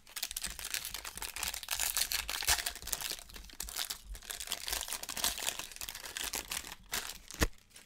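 Plastic wrapper of a Topps baseball card pack crinkling and tearing as it is pulled open by hand, with a sharp click about seven seconds in.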